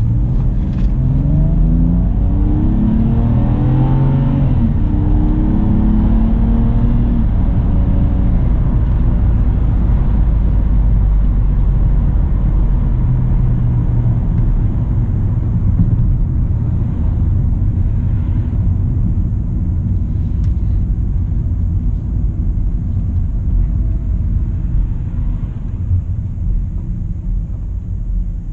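2008 BMW 328xi's 3.0-litre straight-six pulling away and accelerating: its pitch rises in several climbs over the first few seconds, then it settles into a steady low rumble while driving.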